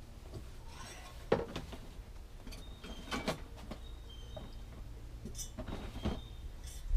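A few separate light knocks and clatters of objects being handled, over a low steady hum.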